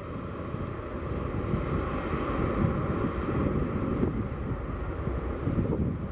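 Jet engines of a Boeing 737-800 (CFM56) running steadily as the airliner rolls out along the runway after landing, heard from the runway side. Wind rumbles heavily on the microphone.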